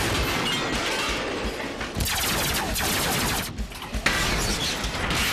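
Cartoon laser-blaster fire: a volley of shots and hits that turns into a very rapid burst for about a second and a half in the middle, followed by one sharp impact about four seconds in.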